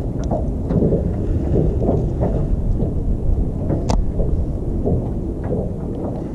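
Wind buffeting the microphone: a steady low rumble, with a few faint ticks over it.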